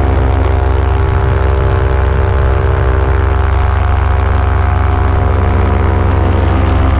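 Paramotor engine and propeller running steadily in flight: a constant, unbroken drone with many even tones stacked on a deep hum.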